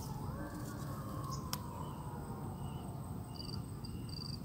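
Rural ambience of insects, likely crickets: short high-pitched chirps repeating from about three seconds in, over a low steady rumble. A faint tone falls slowly in the first two seconds, and there is a single click.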